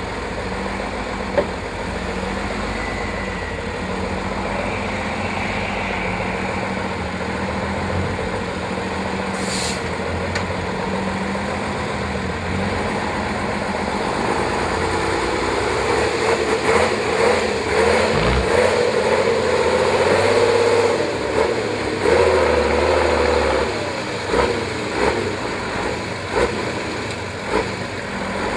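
Praga V3S six-wheel-drive trial truck's diesel engine working at low revs as the truck crawls over rough ground, then revving harder and louder from about halfway through, its pitch rising and falling with the throttle as it climbs out.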